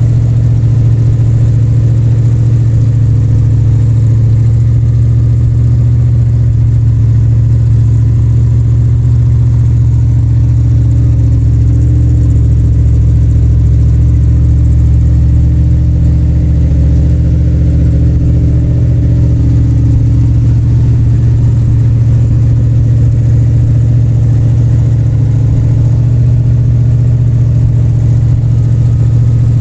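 1971 Plymouth Cuda's V8 engine idling with a steady, low rumbling sound, warming up after a cold start.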